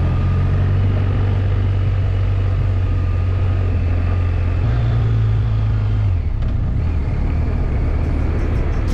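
Motorcycle engine running under way, a steady low drone whose pitch steps up about five seconds in and back down about a second later.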